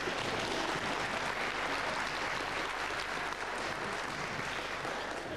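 Audience applauding, starting abruptly and dying away near the end.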